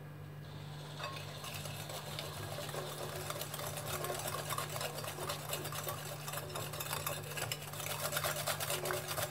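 Hand wire whisk beating a thin egg-and-yogurt batter in a ceramic bowl: fast, continuous clicking and tapping of the wire loops against the bowl, starting about a second in.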